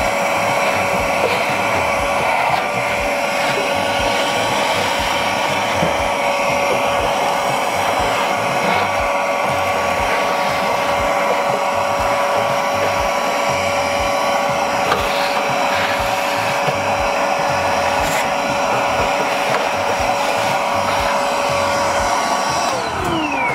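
Cordless 20-volt ash vacuum (PelletHead Ash Vault Pro) running steadily with a high motor whine, its crevice nozzle sucking fly ash out of a pellet grill's burn pot. Near the end it is switched off and the whine falls in pitch as the motor winds down.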